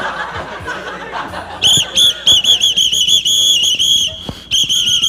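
A whistle blown in rapid short blasts at one high pitch, about three or four a second, starting about a second and a half in, with one longer held blast near the end.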